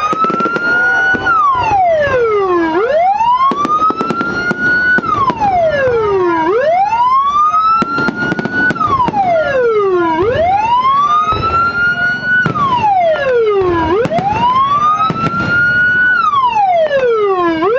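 Electronic police-escort (patwal) siren, a multi-tone siren module driving a TOA horn speaker, sounding a wail. Each sweep climbs quickly, holds briefly at the top, then falls back slowly, repeating about every four seconds. Scattered sharp cracks sound underneath.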